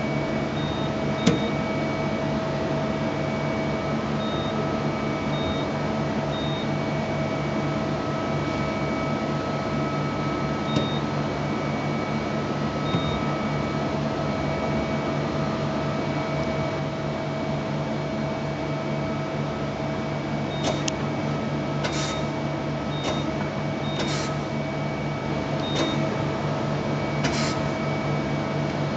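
Okuma LB 300M CNC lathe running under power: a steady machine hum with several held tones, short high pips now and then, and a few short sharp sounds in the last third as the turret moves.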